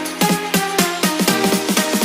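Background electronic dance music with a fast, steady beat of drum hits and pitched synth notes.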